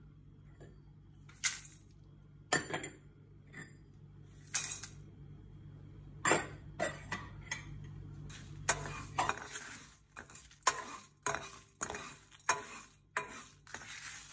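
Whole dry spices (coriander seeds, peppercorns, dried red chillies, cinnamon sticks) dropping into a nonstick pan for dry roasting, in scattered clinks and clatters. About nine seconds in, a quicker run of clicks starts as the spices move about the pan.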